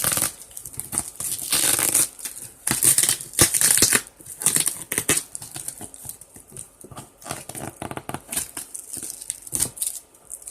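Packing tape being picked at and torn off a sealed cardboard box: irregular ripping and scratching noises, loudest in the first few seconds and sparser after.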